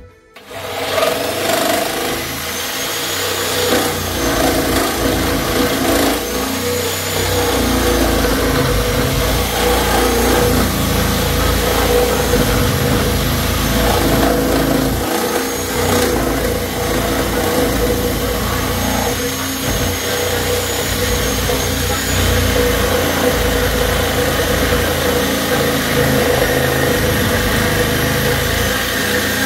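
Corded reciprocating saw starting about half a second in and running steadily as its blade cuts through a block of wood.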